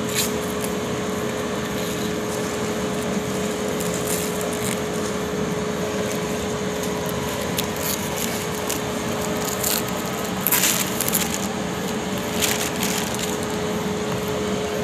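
Steady mechanical hum with one constant tone, like a motor or fan running. A few short rustles and clicks, the clearest about ten and twelve seconds in, come from food and packets being handled at the table.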